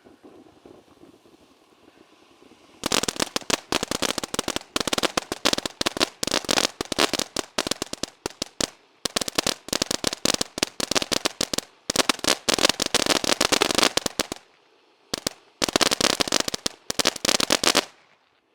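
Ground firework fountain going off with rapid, dense crackling pops in bursts, starting about three seconds in, pausing briefly a few times, and stopping just before the end.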